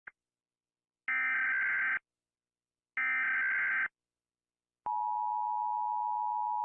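Emergency Alert System broadcast signal: two roughly one-second bursts of buzzy SAME digital header data a second apart. Then, about five seconds in, the steady two-tone EAS attention signal begins.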